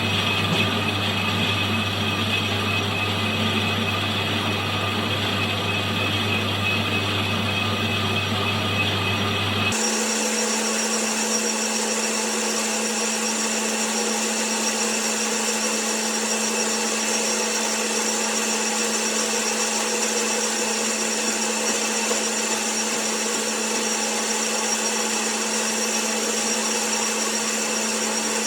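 Metal lathe running steadily while a carbide-tipped tool takes a cut on a cast iron disc. About ten seconds in, the sound changes abruptly: a low hum drops out and a steady higher tone continues.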